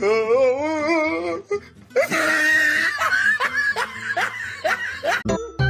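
Human laughter: a wavering, trembling giggle, then after a short gap a run of falling laughs. Music starts near the end.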